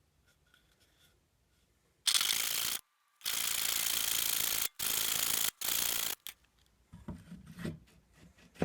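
A hand tool scraping on a dry wooden dowel in four harsh bursts a little over a second long or less, each starting and stopping abruptly. A few soft knocks and a sharp click follow near the end.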